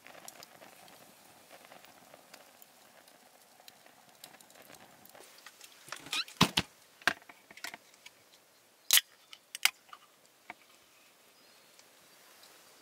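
Several sharp clicks and knocks over a faint background: a cluster about six seconds in and another about nine seconds in.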